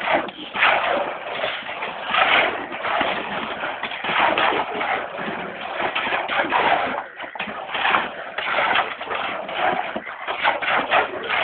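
Irregular scraping and shuffling strokes, typical of shovels working through a cement mix, heard through a phone's narrow sound.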